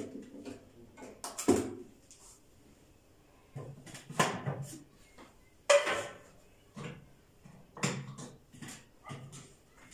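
Plastic parts of a food processor being handled and fitted together: a run of irregular clacks and knocks as the bowl and lid are set in place, the sharpest about six seconds in.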